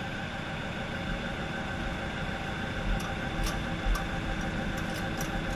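Forklift engine idling steadily, with a few light clicks between about three and five and a half seconds in.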